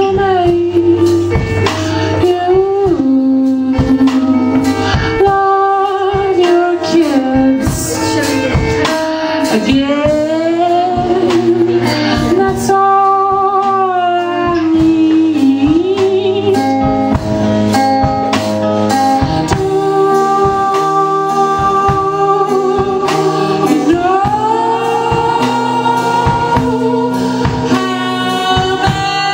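A song: a singer's melody with long held and gliding notes over instrumental accompaniment.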